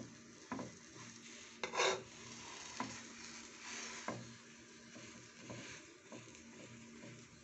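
A spatula knocking and scraping against a nonstick frying pan several times while a thin crepe is rolled over its filling, with one longer scrape about two seconds in, over a faint steady sizzle.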